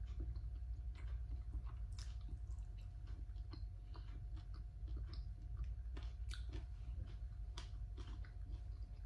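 Close-up chewing and biting of food, irregular small crunches and clicks, over a faint steady hum.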